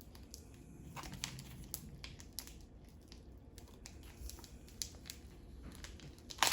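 Crinkling and crackling of a plastic package being handled and opened by hand, with irregular small clicks and rustles and a sharper crackle near the end.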